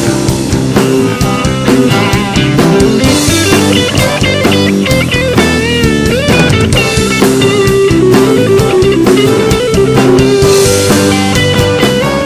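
Live rock band playing an instrumental break: strummed acoustic and electric guitars over a drum kit, with a lead melody line that bends and wavers in pitch.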